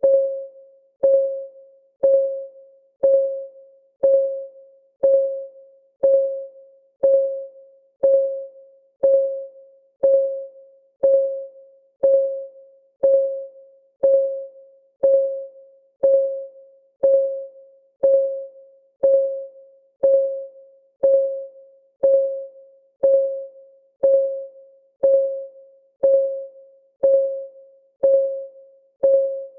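Countdown timer's ticking sound, one tick a second, steady and even. Each tick is a sharp click with a short ringing tone that dies away before the next.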